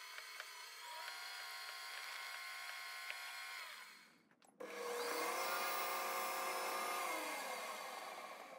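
Metal lathe spindle running with a steady motor whine while a twist drill is fed into the centre of a piston blank. The whine cuts out briefly about four seconds in, comes back louder, and drops slightly in pitch near the end.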